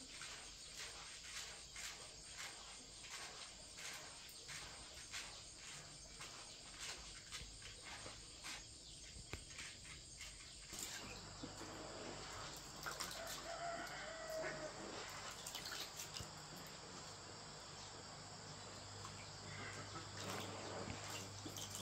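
Domestic chickens calling, with a rooster crowing once about two-thirds of the way in. For about the first half, a run of quick knocks or taps, roughly two or three a second, comes before the calls.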